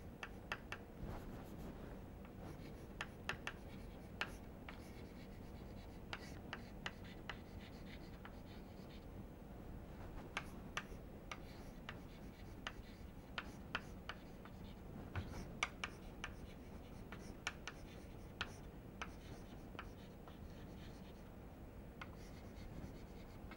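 Chalk writing on a chalkboard: faint, irregular taps and short scratches as the chalk strikes and drags across the board.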